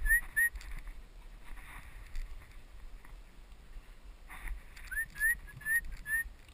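A person whistling to a hunting dog (English setter): two quick runs of short, rising whistle notes, about four a second, one at the start and another about five seconds in. Soft footsteps on the dirt track can be heard between them.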